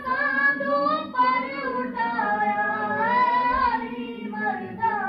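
A single voice chanting a melodic religious recitation through a microphone and loudspeakers, holding long notes that slide up and down in pitch with brief breaks between phrases.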